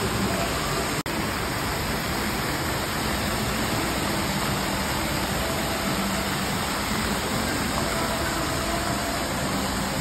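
Indoor mall water fountain, many jets spraying and splashing into the basin in a steady rush of water, with a brief dropout about a second in.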